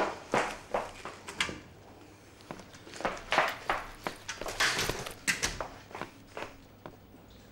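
Footsteps on a hard office floor, with a door handle worked and a door shut, and rustling movement in between: a string of irregular sharp knocks and taps, with a couple of longer scuffing noises.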